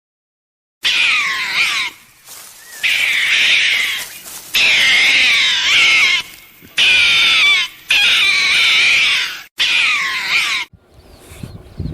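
An animal calling loudly: a series of about six harsh, high, wavering calls, each lasting a second or so, beginning about a second in.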